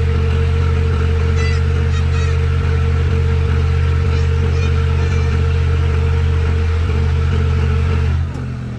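Large diesel engine of heavy machinery running steadily at a constant speed, with a steady hum and a higher whine over it; about eight seconds in, the whine stops and the engine drops to a quieter, lower level.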